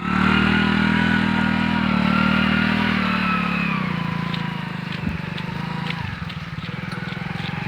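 Motorcycle engine running at high, steady revs, then dropping about four seconds in to a lower idle with the separate firing pulses audible.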